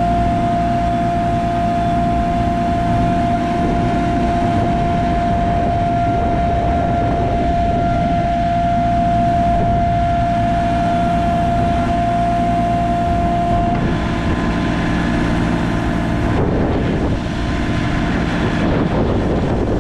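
JCB 3CX loader backhoe's diesel engine running steadily, with a steady high whine over it that stops about two-thirds of the way through, after which the sound shifts.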